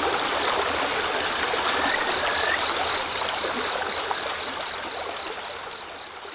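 Mountain stream babbling, with a cricket's steady pulsing trill high above it and a couple of short rising whistle calls from kajika frogs about two seconds in. The whole soundscape fades out gradually over the second half.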